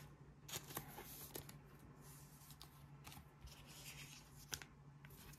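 Faint soft clicks and rubbing of Pokémon trading cards being handled, over near silence with a faint low steady hum.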